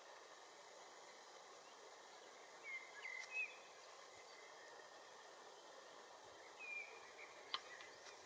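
Quiet outdoor countryside ambience with a steady faint hiss. A few short high chirps come about three and seven seconds in, and a single sharp click comes near the end.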